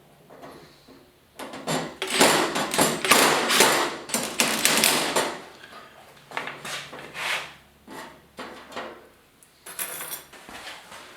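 Work noise on a sheet-metal LED shop light fixture. A dense run of loud rattling and knocking lasts about four seconds, then comes in shorter bursts and clicks.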